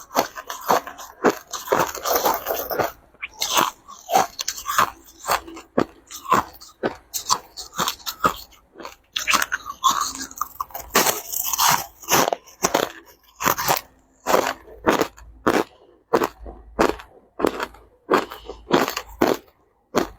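Crushed ice being bitten and chewed, a quick irregular run of crisp crunches with short pauses between mouthfuls.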